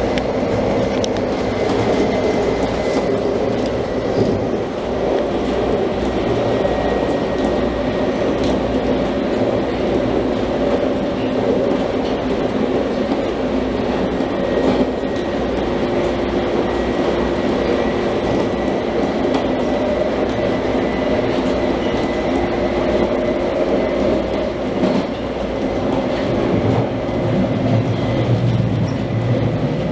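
UTDC H6 subway car running between stations, heard from inside the car: a steady rumble with a constant whine, and scattered clicks of the wheels over the rail.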